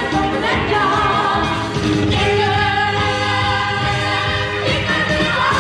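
Music with sung vocals, the singers holding long notes.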